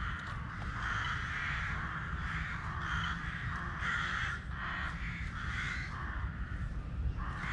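Harsh, cawing animal calls repeated roughly once a second, over a steady low rumble.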